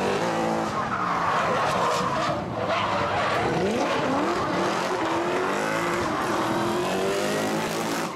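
Drift car sliding past with its engine revving up and down in pitch over the noise of tires skidding.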